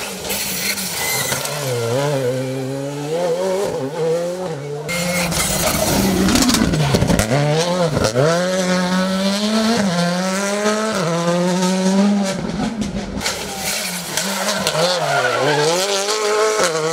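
Rally cars, Škoda Fabias among them, taking a tarmac hairpin at racing speed one after another. The engines rev hard, the revs dropping and climbing again and again through downshifts and full-throttle acceleration.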